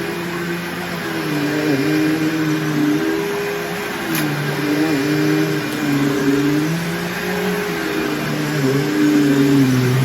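Bissell PowerForce Bagless upright vacuum cleaner running while vacuuming, its motor hum dipping in pitch and recovering every second or two.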